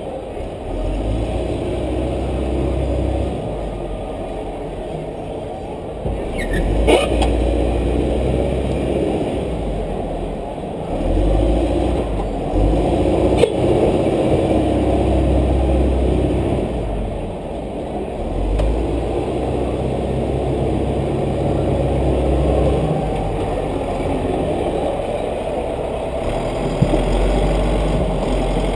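A race car's engine running, heard from the camera on the inside of the door, its low rumble swelling and easing every few seconds. Two sharp knocks come in the first half.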